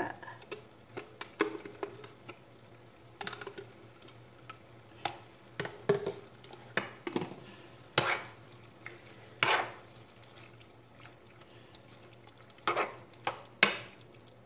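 A spoon stirring and scraping chopped chicken with mayonnaise in a frying pan, with irregular clinks against the pan over a faint steady hum.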